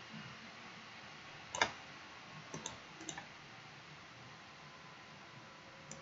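Computer mouse clicking: one sharp click about a second and a half in, then a few quick pairs of lighter clicks, over a faint steady hiss.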